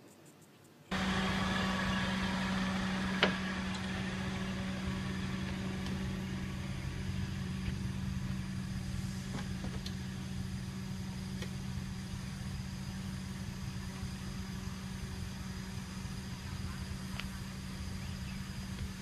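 After a second of near silence, a steady low hum of an idling car engine comes in suddenly and runs on under a light hiss, with one sharp knock about three seconds in and a few faint ticks later.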